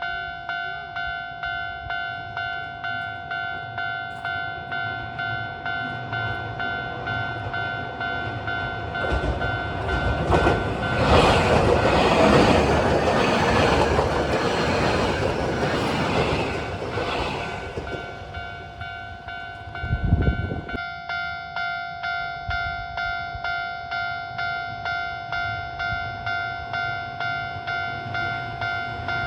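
Japanese level-crossing warning bell ringing in a steady pulsing ding, a little under two strikes a second. About nine seconds in, a Keio 1000 series electric train passes over the crossing, and its wheel and running noise swells over the bell for some eight seconds. A short low rumble follows about twenty seconds in.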